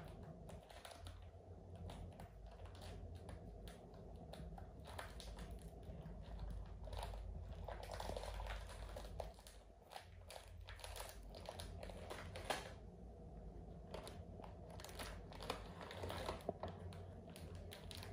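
Plastic snack wrapping crinkling and crackling in irregular bursts as a package of wafer rolls is handled and pulled open by hand.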